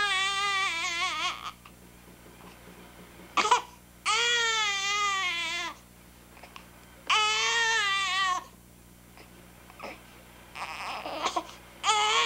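Young baby crying in about four long wails, each a second or two long and dropping in pitch at its end, with short gasping catches of breath between them.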